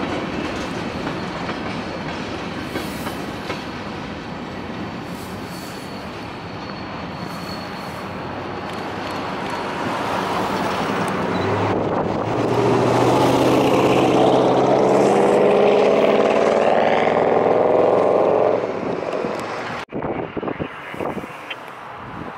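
Freight train of covered hopper cars rolling past on the rails, then a long train horn blast from the head-end locomotive lasting about six seconds and ending abruptly. Near the end it cuts to quieter wind noise.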